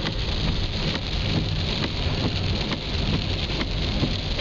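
Rain hitting a car's roof and windscreen, heard from inside the cabin, over the car running and its tyres on a wet road, with scattered sharp drop ticks.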